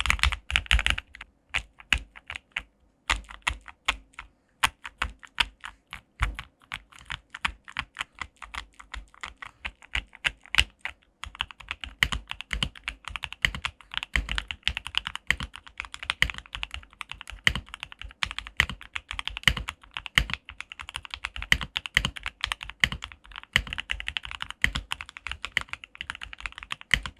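Typing test on a modded mechanical keyboard built on a Gamakay K66, with lubed and filmed Durock Creamy Pink Smoky switches, lubed stabilizers and cherry-profile keycaps. The keystrokes come irregular and fairly sparse at first, then turn into fast, dense continuous typing about eleven seconds in.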